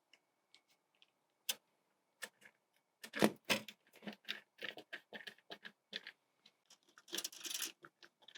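Irregular light clicks and knocks of a greenhouse louvre and its capping pieces being set into the frame by hand, with two sharper knocks about three seconds in and a brief scraping rattle near the end.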